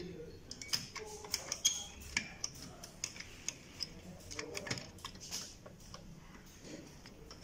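Irregular light clicks and taps of metal and plastic as the gear bracket and plastic gears on the side frame of an HP LaserJet 1320 printer are handled and fitted.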